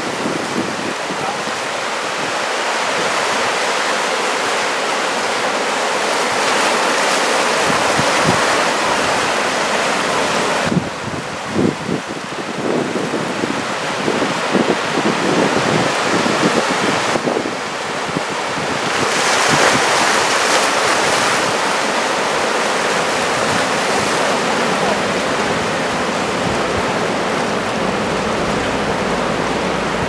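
Breaking ocean surf and strong wind: a steady loud rush of noise, with wind gusting against the microphone in low buffeting thumps partway through.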